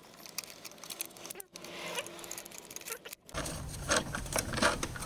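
Irregular small metallic clicks and scrapes of a socket and extension being worked on a bolt by hand. After about three seconds a louder rubbing noise joins the clicks.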